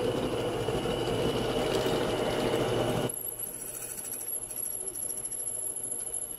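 Drill press running with a carbide-tipped masonry bit pressed into a hardened steel knife tang, a steady grinding hum. About three seconds in it drops abruptly to a quieter hum with a thin high whine.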